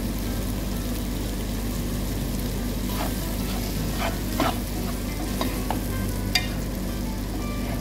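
Mixed vegetables sizzling in a non-stick frying pan as they are stirred with a spatula. There is a steady frying hiss, with a few scrapes and knocks of the spatula against the pan from about three seconds in; the sharpest knock comes a little after six seconds.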